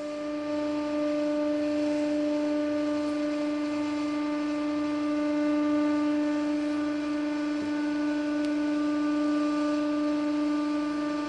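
Hydraulic press pump running, a steady whine held on one pitch with overtones, while the press ram pushes down under load.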